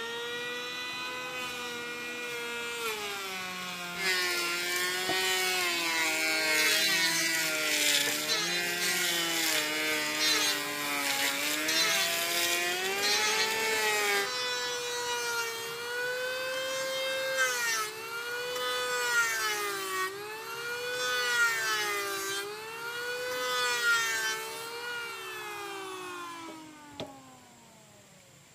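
Handheld electric power tool working wood, its motor whine dipping and rising every second or two over a rasping hiss. A second motor tone overlaps in the first half. Near the end the motor is switched off and its pitch falls away as it spins down.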